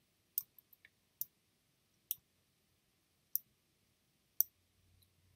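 Computer mouse clicking: a handful of sharp single clicks, a few close together at first, then about one a second.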